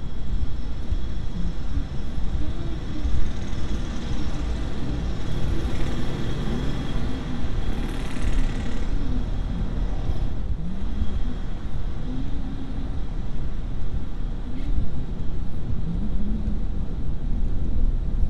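Road and traffic noise heard from inside a moving car: a steady low rumble of engines and tyres, with a brief hiss about eight seconds in.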